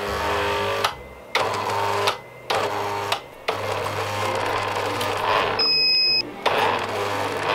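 Corded electric drill, run off a car battery through a power inverter, whirring in repeated bursts as its trigger is pressed and released, with a steady hum underneath. About six seconds in, a high steady beep sounds for about half a second, from the inverter.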